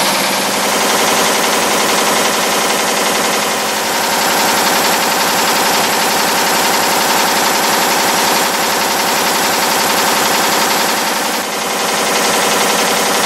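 Double-wire nail-making machine (Zeus Techno Nail Bank B-3 Double) running at full production speed, about 1,320 nails a minute, with a fast, continuous metallic clatter from the strokes of its cutting and heading dies as it turns out 2.5 × 55 mm wire nails.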